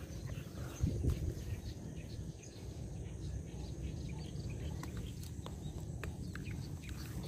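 Wind buffeting the microphone as a steady low rumble, with a heavier bump about a second in and scattered small clicks and ticks.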